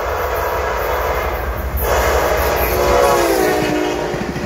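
Amtrak passenger train passing at speed, its locomotive horn blowing: a new blast starts about two seconds in and its pitch drops as the locomotive goes by. A steady low rumble from the train runs underneath.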